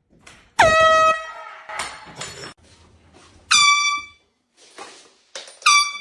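Handheld canned air horn blasted several times. There is one lower blast about a second long near the start, then shorter, higher-pitched blasts in the middle and near the end, each dipping in pitch as it starts.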